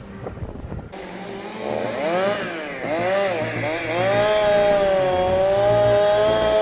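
Chainsaw engine revving, its pitch rising and falling several times before it holds at a steady high pitch for the last couple of seconds.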